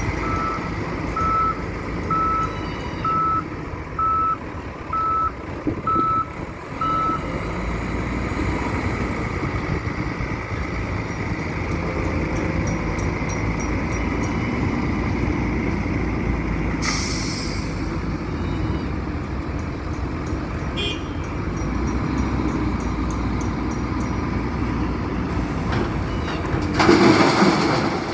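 Diesel engine of a wheel loader running under work, its reversing alarm beeping about once a second for the first seven seconds or so. A short hissing burst comes midway, and a louder noisy burst about a second long comes near the end.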